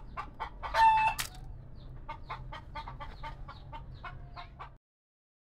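Chicken clucking in a quick steady run of short clucks, about four a second, with one louder call about a second in. It cuts off abruptly near the end.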